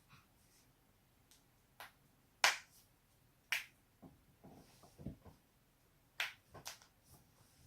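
Human joints cracking: about five sharp pops, the loudest about two and a half seconds in and two more close together near the end, with a few softer low thumps in between.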